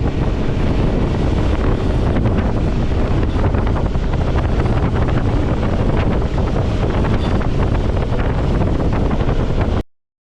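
Wind buffeting the microphone over the steady noise of a fishing boat at sea, with engine and water sound underneath; it cuts off abruptly near the end.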